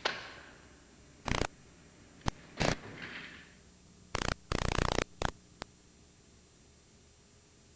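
A scatter of sharp clicks and crackles over faint hiss, with a denser crackling stretch about four and a half seconds in; the last couple of seconds hold only the hiss.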